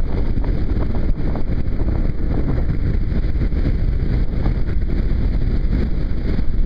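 Wind buffeting the microphone of a motorcycle at riding speed, a steady heavy low rumble of wind and road noise.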